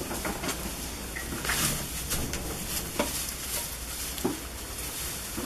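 Dry hay and straw rustling as it is tossed down and trampled by goats, with a couple of short knocks about three and four seconds in.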